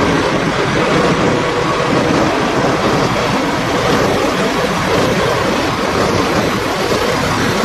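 Peterbilt 389 semi truck's diesel engine idling: a steady, loud rumble.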